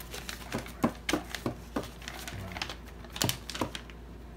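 Paper leaflet and its plastic wrapping crinkling and rustling as they are pulled out and unfolded, with irregular sharp clicks and crackles.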